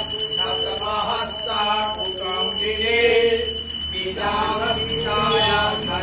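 Men chanting mantras together at a havan fire ritual, with a puja hand bell ringing steadily over the chant.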